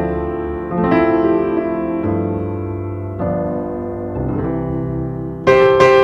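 Background piano music: slow, sustained keyboard chords, a new chord struck about every second, with a louder chord near the end.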